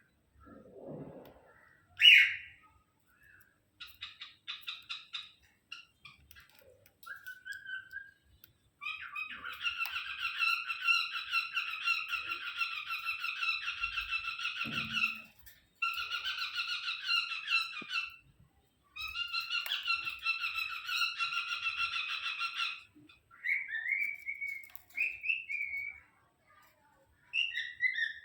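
Cockatiel chattering and warbling in long runs of rapid chirps broken by short pauses, with one loud sharp call about two seconds in and a few whistled notes near the end.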